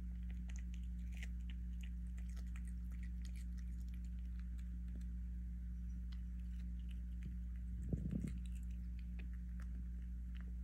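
A British Shorthair kitten chewing watermelon: many small wet smacking clicks, over a steady low hum. About eight seconds in there is one brief knock.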